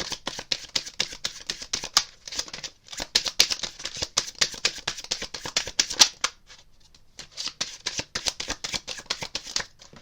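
A deck of tarot cards being shuffled by hand: a rapid run of small clicks as the card edges slide and flick against each other, with short pauses about three seconds in and again around six and a half seconds in.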